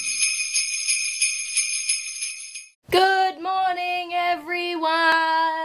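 Jingle bells shaken in an even rhythm, about four strokes a second, for nearly three seconds, then stopping. After that a woman's voice holds long, high, drawn-out notes.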